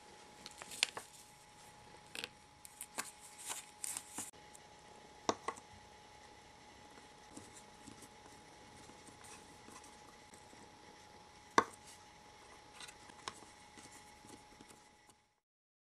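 Hands handling small plastic toy kitchenware and a paper packet: light clicks, taps and rustles, busiest in the first four seconds, with a sharp tap about five seconds in and the loudest one about two-thirds of the way through. A faint steady high hum runs underneath.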